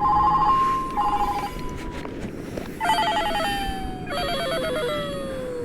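Warbling electronic tone in four notes, each trilling fast between two pitches. The notes step down in pitch, and the last one is long and slides down: a descending 'fail' sound effect marking a lost fish.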